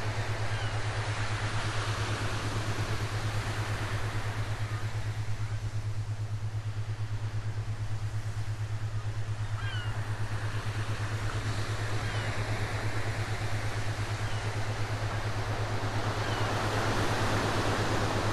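Ocean wave sounds: a steady wash of surf that slowly swells and eases, over a constant low hum, with a few faint short chirps high above.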